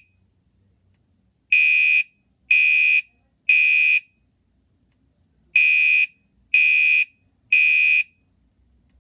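Gentex Commander 3 fire alarm horn sounding in the temporal-three evacuation pattern: three half-second horn blasts a second apart, a pause of about a second and a half, then three more.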